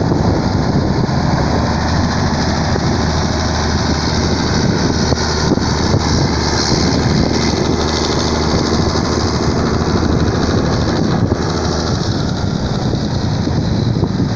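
A motor running steadily at a constant pitch, mixed with continuous rushing noise of wind and rough surf.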